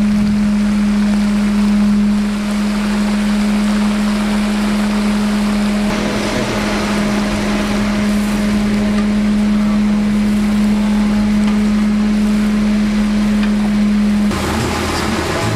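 A large batch of crickets deep-frying in a wok of hot oil, the oil sizzling and bubbling hard, growing louder about six seconds in. Under it runs a loud steady hum that cuts off about a second before the end.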